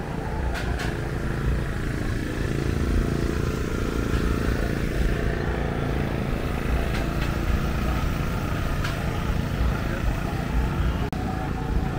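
Street noise: a steady low rumble with people's voices and a few light clicks.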